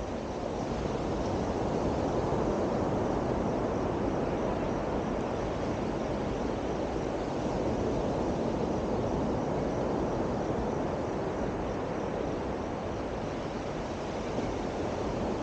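Steady outdoor rushing ambience of wind and surf, swelling gently and easing with no distinct events.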